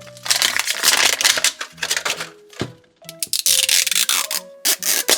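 Plastic wrapping being crinkled and torn open in two long stretches, over background music with steady notes.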